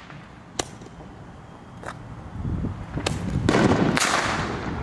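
Handheld Roman candle firing: sharp pops about a second apart, with a rushing hiss building up in the second half.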